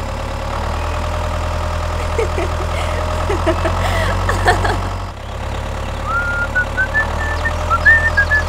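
Tractor engine running steadily at idle, a low even hum. From about six seconds in, a series of short high whistles steps upward over it.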